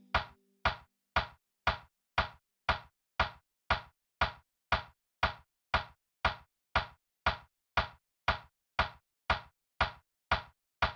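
Steady percussive ticks, about two a second and evenly spaced, alone in a bare stretch of the background music track.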